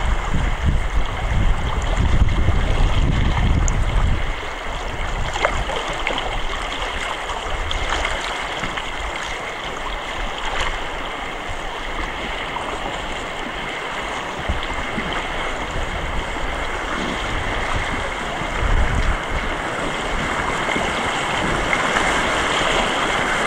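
Rushing white water of a river rapid, a steady hiss heard from a raft on the water, with low wind rumble on the microphone in the first few seconds.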